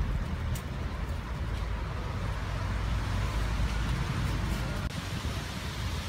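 Outdoor street noise: a steady low rumble of road traffic.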